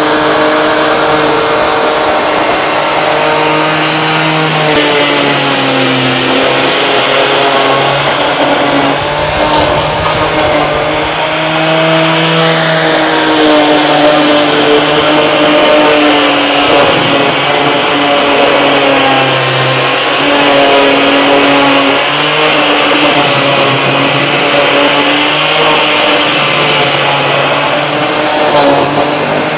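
Metabo LF 724 S electric paint remover running continuously, its cutter drum milling a rubberized coating off the face and side edge of a board in repeated passes, with its connected dust extractor also running. The motor's hum wavers up and down in pitch as the load changes over the passes.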